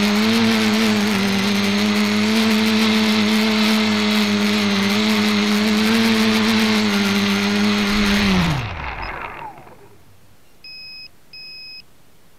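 Electric motors and propellers of a small flying-disc multicopter, heard from its onboard camera, humming steadily at high speed; about eight seconds in they spool down with a falling pitch and stop as the craft sets down. Two short electronic beeps follow near the end.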